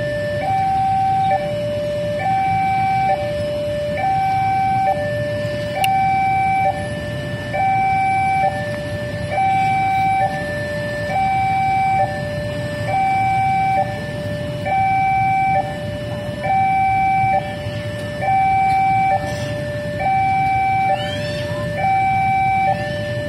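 Railway level crossing warning alarm sounding: an electronic two-tone signal alternating steadily between a higher and a lower note, each held just under a second, warning that a train is approaching and the crossing gates are down. A low steady rumble runs underneath.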